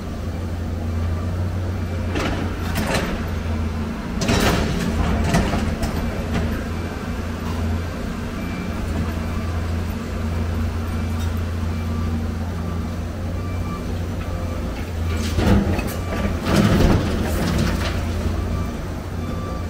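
Excavator's diesel engine running at a steady drone, with bouts of loud clattering and scraping as scrap metal is grabbed and shifted in the steel dump-truck bed: one about two seconds in, another at four to five seconds, and a longer one near the end.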